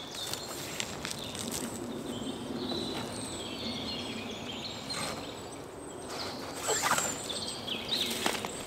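Forest ambience with small birds chirping, and close rustling and clicking of gear being handled, loudest about seven seconds in and again near the end.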